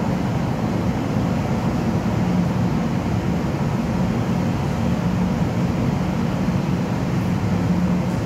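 Steady low rumble and hum with a hiss over it, unchanging throughout: the ambient noise of an underground railway station and tunnel.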